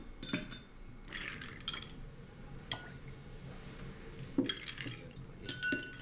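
Glasses and dishes clinking: a series of short, irregular clinks, some with a brief ringing tone.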